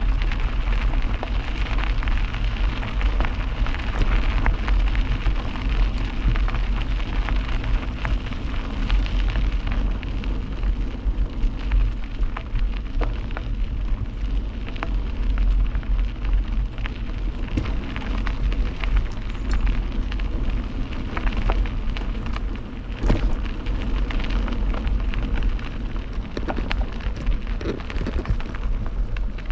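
Wind noise on the microphone and mountain bike tyres rolling over a gravel and dirt trail, with many short clicks and rattles.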